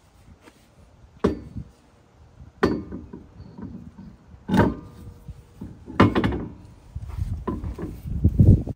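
A series of about six knocks and clunks, roughly one every second and a half, some with a short metallic ring, as a car wheel is worked onto the front hub and its studs.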